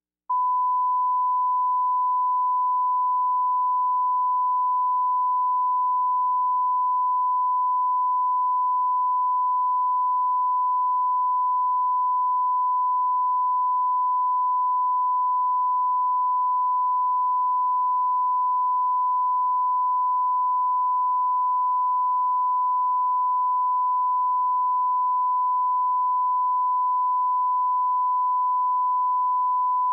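Steady 1 kHz reference test tone, a single pure unbroken tone that starts a moment in. It is the line-up tone that goes with SMPTE colour bars at the head of a broadcast tape.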